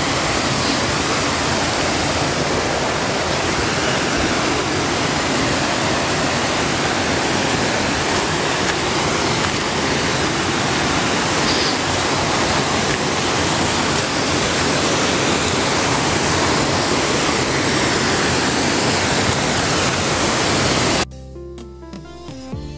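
Waterfall rushing close by: a loud, steady roar of falling water. About 21 seconds in it cuts off abruptly and background music takes over.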